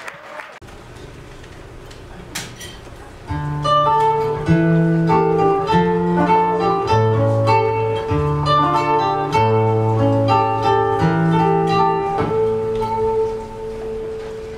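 Acoustic guitar playing a plucked introduction, a picked melody over low bass notes, starting about three seconds in after a quiet stretch with a single click, and easing down near the end.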